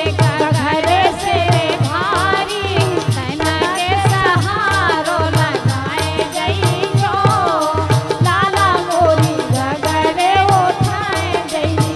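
A woman sings a Bundeli folk song with a melodic, ornamented line. Hand drums keep a steady beat under her, with a jingling rattle and harmonium.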